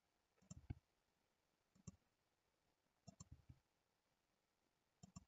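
Near silence broken by faint, scattered clicks of a computer mouse and keyboard, coming in four small clusters.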